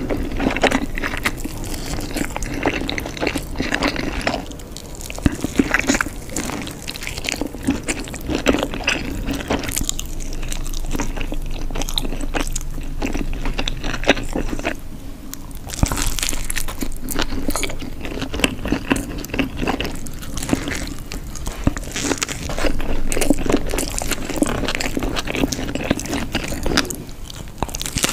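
Close-miked chewing and biting of pizza, with crunchy bites, going on without pause apart from a brief lull about fifteen seconds in.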